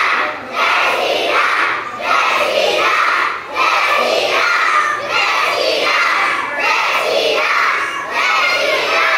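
A large group of children chanting or shouting together in unison, a loud rhythmic call repeated about every one and a half seconds.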